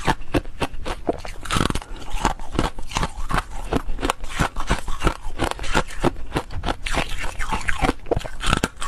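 Foam ice being bitten and chewed close to the microphone: dense crackling crunches, several to the second.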